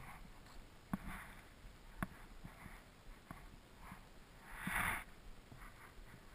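Skis hissing and scraping over packed, groomed snow through a series of turns, with the loudest, longest scrape about four and a half seconds in. Scattered light knocks sound between the turns.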